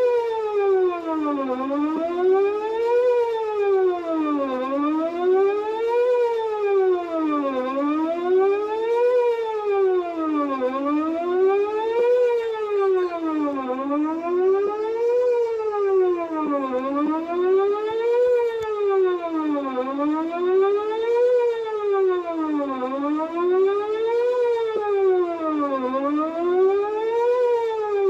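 Whelen 2809 electronic outdoor warning siren sounding its Best Possible Protection test tone: a steady pitch glide rising and falling evenly, one full cycle about every three seconds.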